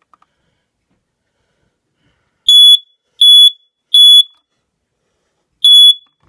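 Universal SS770 smoke alarm sounding its Code 3 (temporal-three) pattern: three short, loud, high-pitched beeps in fast succession, a brief pause, then a fourth beep starting the next cycle near the end. The cycle is very fast.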